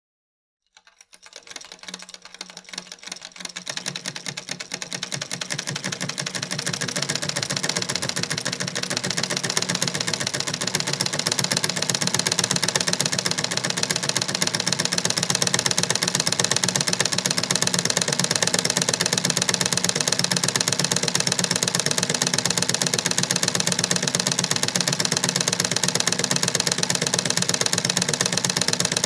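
1930s foot-operated Singer treadle sewing machine stitching: a rapid, even clatter of needle strokes that starts about a second in, builds up over the first few seconds, then runs at a steady fast pace.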